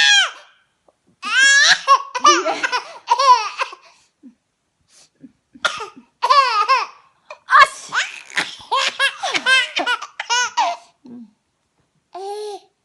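A baby laughing in several high-pitched bursts with short pauses between them.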